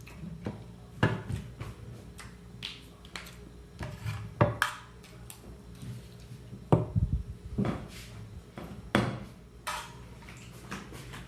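Cutlery clinking and scraping against a plate while scrambled eggs are eaten: irregular sharp clinks, some with a brief ring, a second or two apart.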